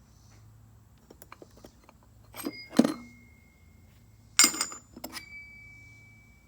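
Metal hand tools clinking and clanking against each other as they are picked through. There are a few light clicks, then two bursts of sharp clanks. Struck metal rings on briefly after each burst.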